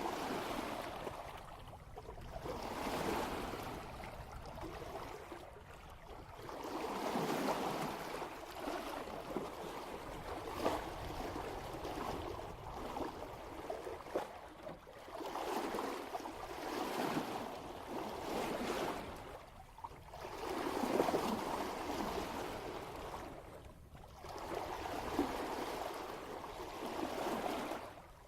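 Water rushing and splashing at the bow of a sailboat moving at about 3 knots, swelling and easing in surges every few seconds as the hull meets the swell.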